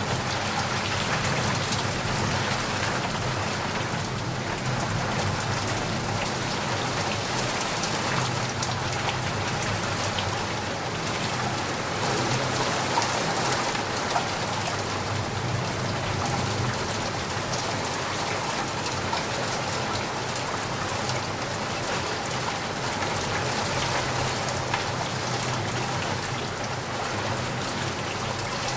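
Steady rainfall, with many single drops landing as small sharp ticks over an even hiss.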